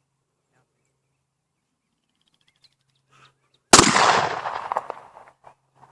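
A single loud Glock pistol shot, sudden and sharp, its echo trailing off over about a second and a half.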